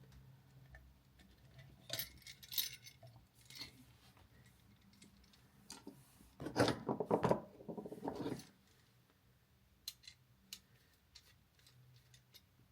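Small hand tools working stiff copper wire: a scatter of sharp metallic clicks, with a louder stretch of scraping and handling about six to eight seconds in, as the wire end is bent into a hook for a terminal screw.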